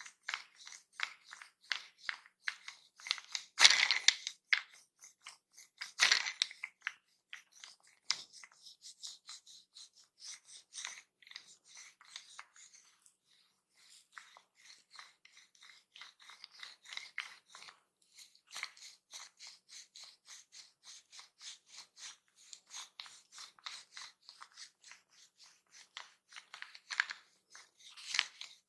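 Close-miked massage sounds: a quick run of short, crisp strokes and pats on skin and hair, about two to three a second, with two louder knocks about four and six seconds in.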